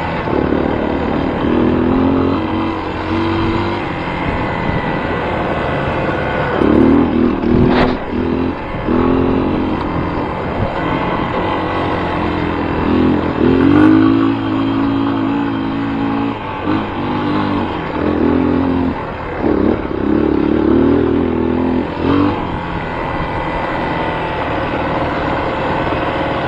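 A motor vehicle engine running and revving repeatedly, its pitch rising and falling in several bursts, with a sharp click about eight seconds in. The sound cuts off suddenly at the end.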